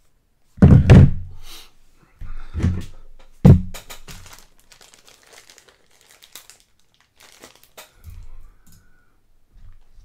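Three heavy thunks of things being set down or bumped on a tabletop within the first few seconds, with some crinkling of plastic and lighter knocks after.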